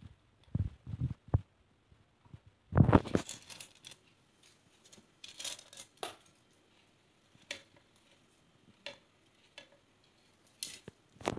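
Scattered knocks, scrapes and rustles of a plastic plate being handled and ingredients dropping into a slow cooker pot, with a louder thump about three seconds in.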